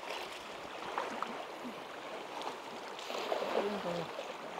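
Steady rushing of river water, with a few faint voices near the end.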